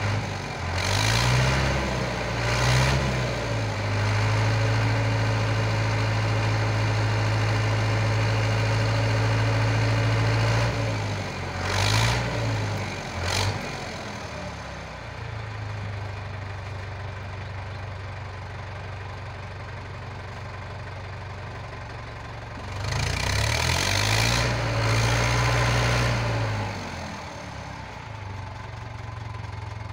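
International 654 tractor engine revving up and down under load in deep mud. It is held at high revs for several seconds, then drops to a lower, steadier speed, and revs up again for a few seconds about three-quarters of the way through before settling back.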